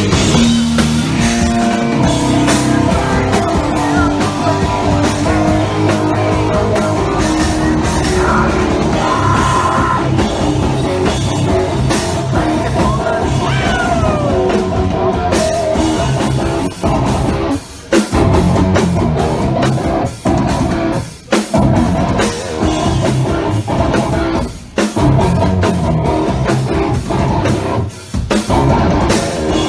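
Rock band playing live: distorted electric guitars, bass and drum kit, with sung vocals. In the second half the band stops dead several times for a moment before coming back in.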